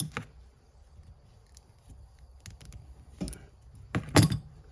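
Handling noises of a stainless steel zip tie being worked around a header-wrapped exhaust pipe: scattered faint metal clicks and ticks, with a louder knock a little after three seconds and another about four seconds in.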